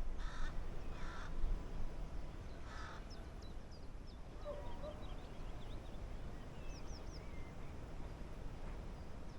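Crow-like bird cawing four times in the first three seconds, followed by faint high chirps of small birds, over a low steady rumble.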